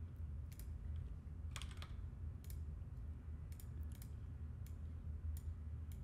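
Computer keyboard keys and clicks tapped irregularly, about a dozen in all, while shortcuts are entered to add shader nodes. A steady low hum sits underneath.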